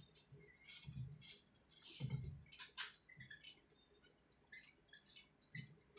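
A bare hand wiping marker off a whiteboard: a run of faint, short rubbing swishes, some with a soft bump against the board.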